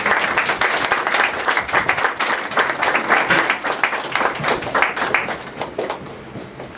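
Theatre audience applauding, a dense run of many hands clapping that thins out and fades near the end.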